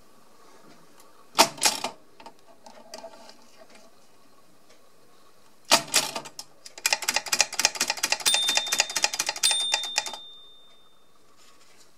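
Two sharp mechanical clacks, then a rapid run of clicking lasting about three seconds, with a brief high ringing tone partway through.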